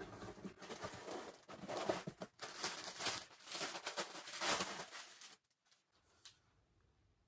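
Rustling and light clicking and clattering of small things being handled close by, stopping about five seconds in.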